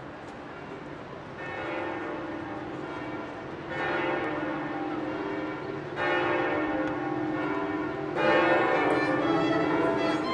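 Church bells ringing: four strikes a couple of seconds apart, each louder than the last, their tones ringing on and overlapping.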